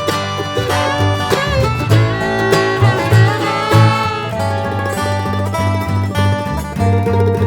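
Music: plucked string instruments over a bass line that falls into an even, repeating beat about halfway through.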